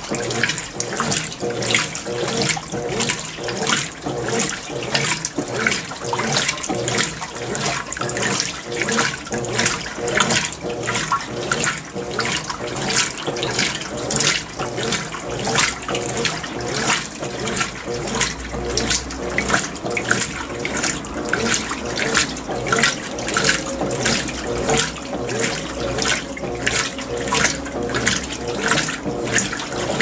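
Consul CWL16AB 16 kg top-load washer agitating its load, with water sloshing in regular surges about twice a second, during the first rinse.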